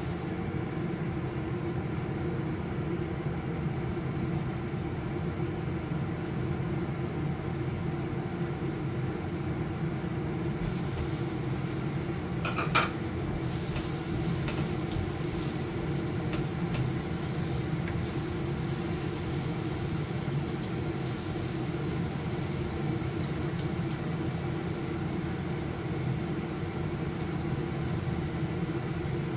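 Minced garlic and onion frying in oil in a frying pan, a hiss that comes in about ten seconds in and stays, with one sharp knock of the spatula on the pan a little before halfway. Under it runs the steady hum of a kitchen range hood fan.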